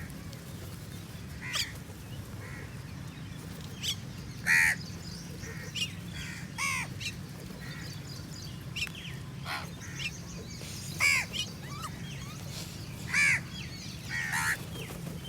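Crows cawing: about a dozen short calls from several birds, scattered irregularly and sometimes overlapping.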